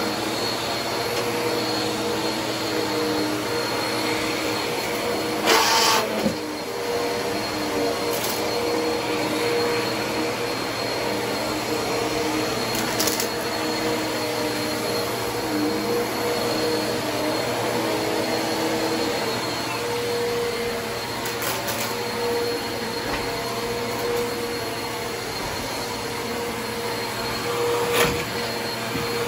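Two upright bagless vacuum cleaners running together on carpet: a steady motor drone with two whining tones. A loud crackle about six seconds in, a couple of fainter ones in the middle and a sharp click near the end as bits of debris are sucked up.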